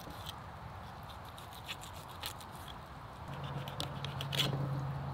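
Knife slicing a black mullet fillet off the backbone, with a few faint scrapes and clicks of the blade against bone and the wooden cutting board. A low steady hum comes in about three seconds in.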